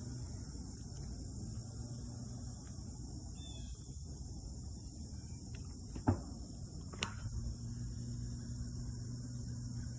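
Steady high-pitched insect chorus, with a low steady hum underneath. Two sharp clicks come about six and seven seconds in; the first is the loudest sound.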